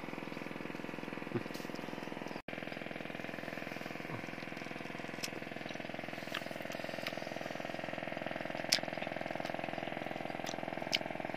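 A steady motor hum, with a few faint clicks and a brief dropout about two and a half seconds in.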